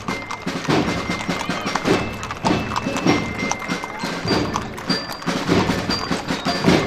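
Several horses' hooves clopping on a paved street at a walk, the clops irregular and overlapping. Brief high ringing notes sound now and then over them.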